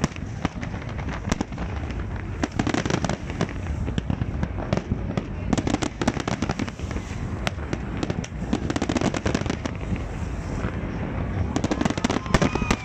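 Large aerial fireworks display: a dense, continuous barrage of shell bursts and crackling, many bangs a second.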